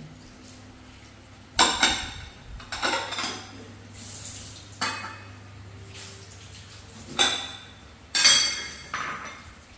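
Dishes clattering in a kitchen sink: a series of about six sharp clinks and knocks of dishware being handled, the loudest about a second and a half in and just after eight seconds in.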